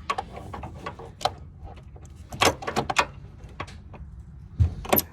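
Irregular clicks, knocks and scraping of hand-work in the engine bay as a rubber upper radiator hose is forced onto its fitting, with a deep thud near the end.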